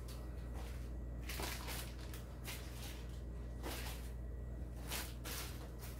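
Plastic packaging bags rustling and crinkling in about five short bursts as large bagged RC crawler wheels and tyres are picked up and moved.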